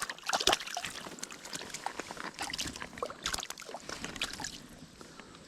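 Irregular splashing and sloshing of shallow creek water as a hooked rock bass is landed and handled, dying down about four and a half seconds in.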